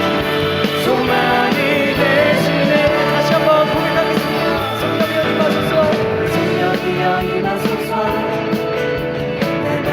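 Contemporary Christian worship music from a band with guitar, with singing.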